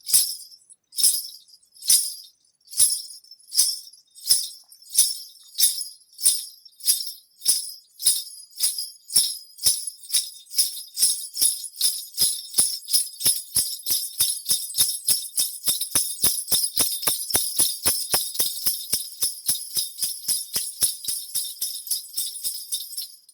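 Jingling bells shaken in a steady rhythm that speeds up, from about one jingle a second to about three or four a second, stopping suddenly near the end.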